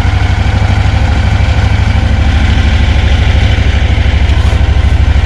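Lanchin 30 hp air-cooled engine idling steadily and evenly, just started cold on choke and warming up.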